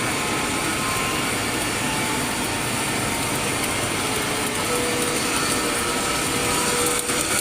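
Steady, even machine noise with a faint held tone, like an engine or motor running without a break.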